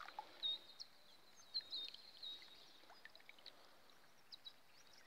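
Faint sloshing and dripping of shallow water as someone wades and handles something in it, with a few small splashes. Short, faint high bird chirps repeat in the background.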